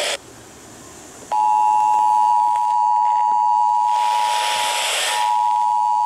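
Emergency Alert System two-tone attention signal, two steady tones sounding together, played through a small portable emergency radio's speaker. It starts about a second in after a short quiet gap, and a burst of radio static hiss rises over it around four seconds in.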